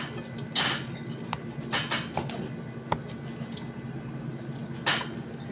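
Eating noises: a few short rustles and small clicks from food being handled and eaten, over a low steady hum.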